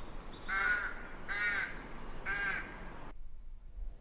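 A crow cawing three times, short harsh calls under a second apart, over a faint steady hiss that cuts off suddenly about three seconds in.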